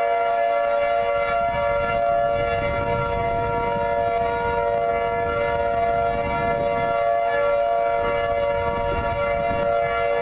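Outdoor tornado warning siren sounding a steady, held chord of several tones at full pitch, neither rising nor falling, during a siren test. A low rumble lies underneath from about a second and a half in.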